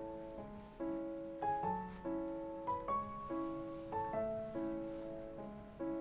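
Gentle piano background music: soft chords and a simple melody, a new chord struck about every second and left to fade.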